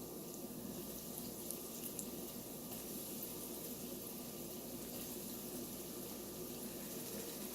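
Battered cauliflower pieces frying in hot oil: a steady sizzle with faint scattered crackles.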